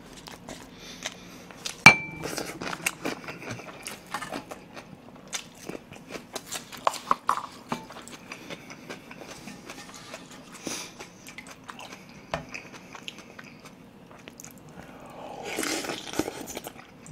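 Close-miked eating of pork soup with rice: chewing and mouth sounds, with many small clicks of chopsticks and spoon against the pot and bowl. A sharp clink with a brief ring comes about two seconds in, and a louder stretch of slurping near the end as food is sucked in from the chopsticks.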